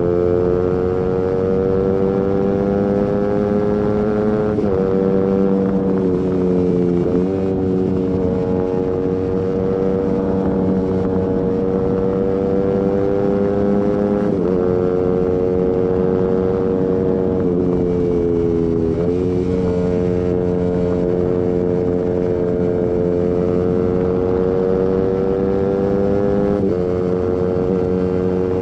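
Suzuki GSX-R150's single-cylinder engine through a Prospeed aftermarket exhaust under way. The note climbs slowly under throttle and sags in a few stretches, with several abrupt jumps in pitch at gear changes.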